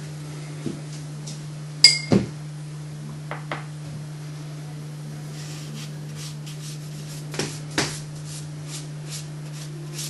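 Painting gear clinking and tapping on a work table: a sharp, ringing clink about two seconds in, a second knock just after, then a few fainter taps, over a steady low hum.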